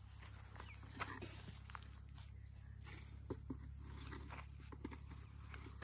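Insects chirring steadily at a high pitch, with faint scattered ticks and rustles of a plastic bottle gripped in snake tongs being shifted about in grass.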